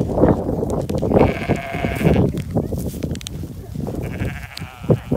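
Bleating from the sheep and goats in the pen: two long bleats, one about a second in and one about four seconds in.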